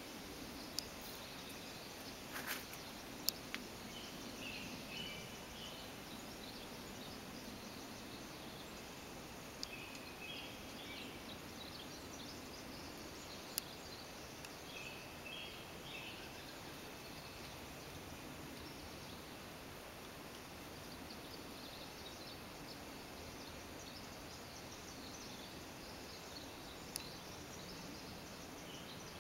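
Faint birdsong: scattered short chirps and trills from songbirds over a steady background hiss, with a few sharp clicks.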